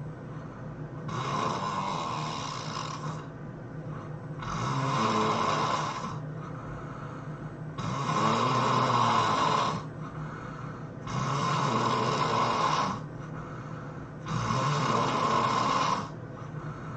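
A person snoring in their sleep: a long snore about every three seconds, five in all, with quieter breathing between.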